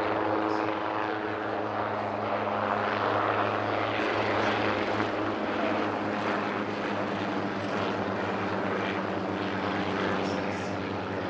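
Hughes 269 (Schweizer 269C) light helicopter running in flight: a steady piston-engine and rotor drone with constant low tones.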